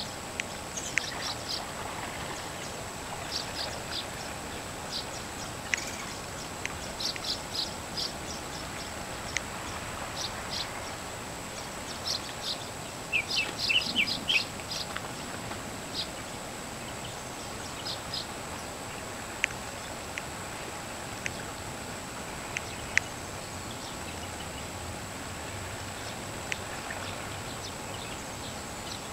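Small birds chirping in short, high calls over a steady outdoor hiss, with a quick run of chirps about halfway through.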